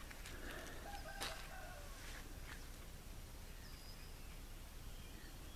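Faint outdoor ambience with a few distant bird calls and several soft clicks in the first half.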